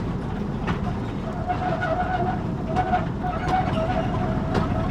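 Narrow-gauge field railway train running with a steady low rumble, its wheels squealing around a curve: a wavering high squeal sets in about a second in and carries on, with a few sharp clicks.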